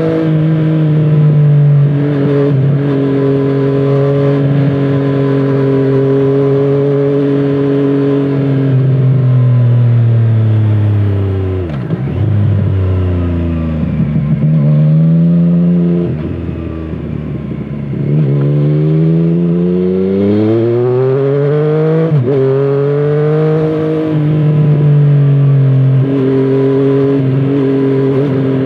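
2017 Triumph Street Triple 765 RS inline three-cylinder engine through a Scorpion Serket Taper carbon exhaust, heard from the rider's seat. It cruises steadily, then the pitch falls as the bike slows, with quick breaks at the gear changes and a brief low lull near the middle. It then accelerates through the gears, the pitch rising with a shift in between, and settles to a steady cruise again.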